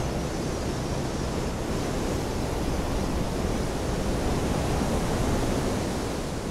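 Steady, even rushing noise like wind or distant surf, swelling slightly about five seconds in.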